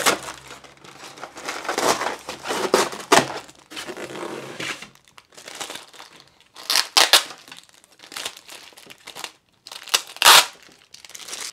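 Thin clear plastic parts bags holding spare propellers crinkling and rustling as they are handled and opened, with a few louder sharp crackles about seven and ten seconds in.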